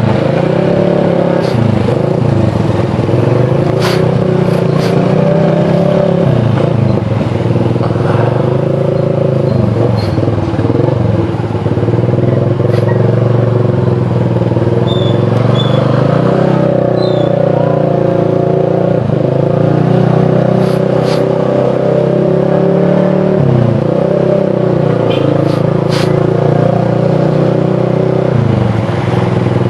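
Motorcycle engine running under way, its note dipping briefly several times as the throttle changes. The bike is running low on fuel.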